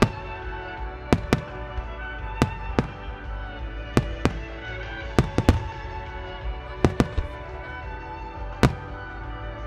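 Aerial firework shells bursting overhead, about a dozen sharp bangs at uneven intervals, some in quick clusters, with the sharpest near the start and near the end. Music plays steadily under the bangs.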